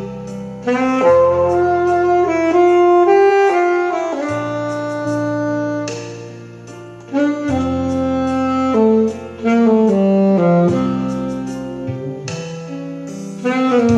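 Saxophone playing a slow, legato melody with long held notes and slides between them, over a low sustained accompaniment whose chords change every few seconds.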